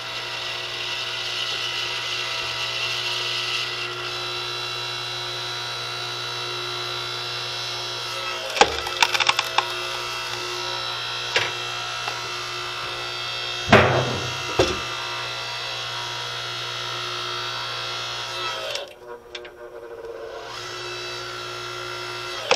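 Electric DR 5-ton log splitter running with a steady motor-and-hydraulic-pump whine as the ram drives a round into the wedge; the wood cracks and splinters several times past the middle, loudest about two-thirds of the way in. Near the end the motor stops for about a second and a half, then starts again.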